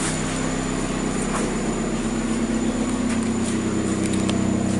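Kia Rio's four-cylinder, 16-valve petrol engine idling steadily.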